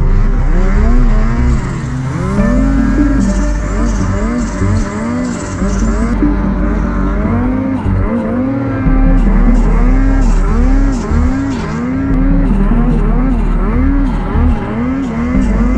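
Two-stroke snowmobile engine revved up and let fall back over and over, roughly one to two throttle swells a second, under load while riding.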